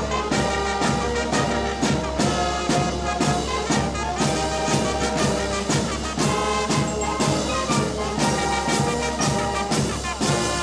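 Alpini military marching band playing a march: brass carrying the tune over a steady drum beat of about two beats a second.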